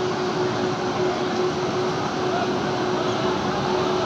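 Indian Railways electric locomotive rolling slowly into the platform: a steady running rumble with a constant hum.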